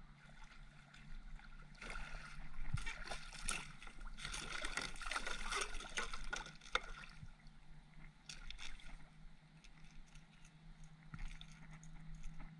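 A hooked striped bass thrashing and splashing at the surface against the side of a kayak, with water sloshing. It is loudest in the middle, then settles as the fish is gripped and lifted.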